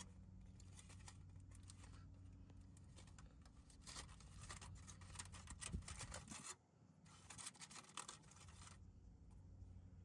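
Near silence with a faint steady low hum, broken by light scratching and clicking handling noises in two stretches, the second starting after a brief quiet gap about two-thirds of the way through.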